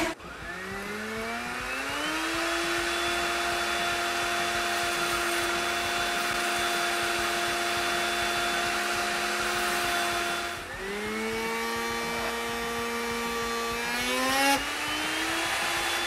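Blender motor driving a flexible-shaft rotary tool: it spins up over about two seconds to a steady whine with a cutting-disc hiss on a thin sheet, drops in speed about ten seconds in, then climbs again near the end as the speed control is turned.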